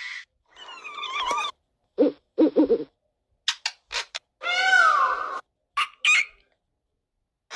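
Recorded animal calls played one after another with short gaps: low pulsed calls from an ostrich, then a parrot's clicks and a long squawk that falls in pitch, then a brief pelican call.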